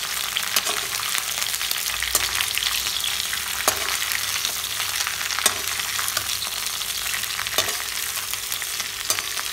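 Shredded raw jackfruit sizzling as it is stir-fried in hot oil in a kadhai. A spatula scrapes and clicks against the pan about five times.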